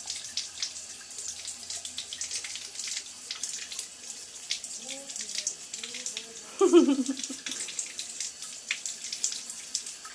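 Bathtub faucet running a thin trickle onto the tub floor, with irregular splashing drips. About halfway through, a dachshund gives a few short whines and then a louder yelp that falls in pitch.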